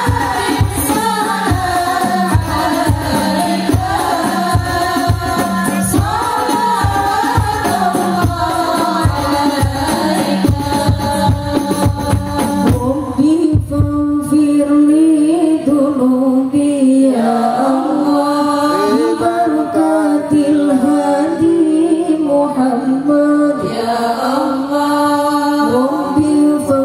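Group of women singing together into microphones, with hand-held frame drums keeping a steady beat. About halfway through the drums stop and the voices go on alone.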